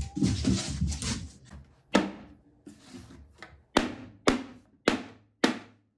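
Mallet blows on a glued-and-screwed plywood rack: a second of handling and rustling, one knock about two seconds in, then four more at about half-second intervals near the end, each ringing briefly. The rack is not coming loose.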